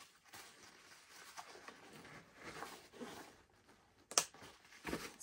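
Faint rustling and scraping of nylon webbing and fabric as a MOLLE pouch strap is worked through the webbing loops on a pack. There are two sharp knocks about four and five seconds in.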